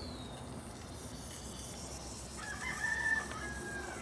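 A rooster crows once, a single drawn-out call of about a second and a half in the second half.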